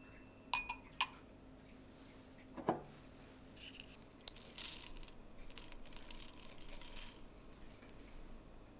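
Two light metal clinks as a stainless steel mesh tea infuser is set into a ceramic cup, then a soft knock. About four seconds in, dried hibiscus tea rattles into the metal infuser as it is tipped from a glass jar, starting with a sharp ringing clink and going on for about three seconds.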